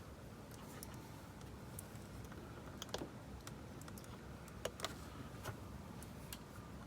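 Scattered small clicks and ticks as wire ends are pushed into the coiled spring terminals of a 1980s Radio Shack electronics kit, with a louder pair of clicks just before five seconds in.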